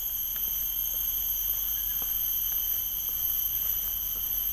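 Forest crickets calling in a continuous high-pitched chorus, a steady shrill drone that does not break.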